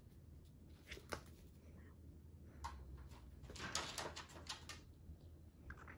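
Puppy's paws and claws tapping and scrabbling on a wooden floor as it plays: a few scattered clicks, then a brief flurry of scuffling a little past halfway.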